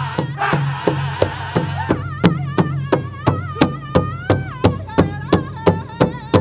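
Powwow drum struck in a steady beat, about three strikes a second, with men's powwow singing; one voice holds a long wavering high note through the middle.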